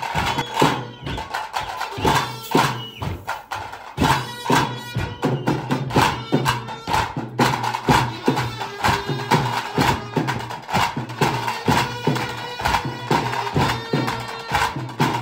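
Traditional tase drum music for the tiger dance: fast, dense drumming with a steady tune held over it.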